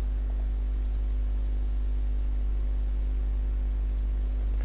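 Steady low electrical mains hum with a constant hiss from the recording chain, with a couple of faint clicks.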